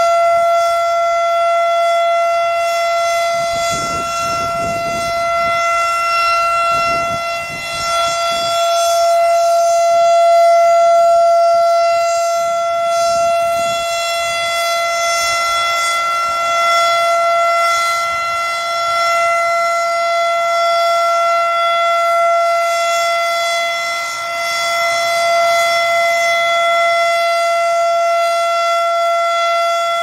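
Federal Signal Thunderbeam RSH-10 warning siren sounding its steady alert signal: one held pitch with a bright stack of overtones, swelling and dipping slightly in loudness.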